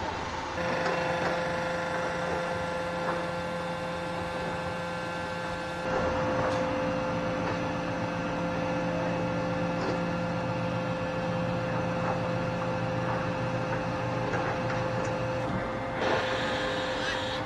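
Machinery of a JB62E walking pile frame running with a steady mechanical hum and whine. The sound gets louder and shifts in pitch about six seconds in, and again near the end.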